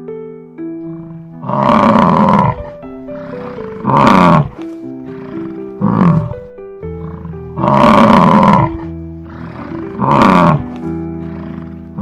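Five loud animal calls, each under a second long and sliding down in pitch, over background music with a simple stepping melody.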